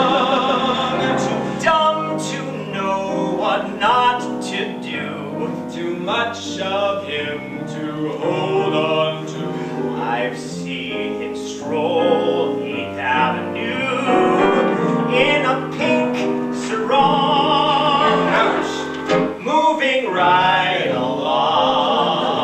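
Two men's voices singing a duet with live piano accompaniment.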